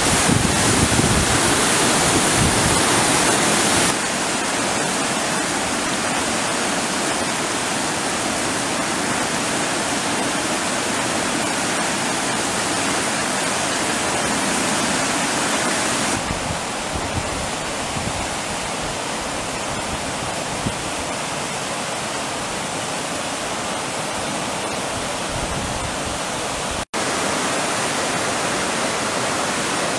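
Floodwater rushing down a creek in flood: a steady, loud rush of churning brown water. Wind buffets the microphone for the first few seconds, the level steps down about 4 and 16 seconds in, and the sound drops out for an instant a few seconds before the end.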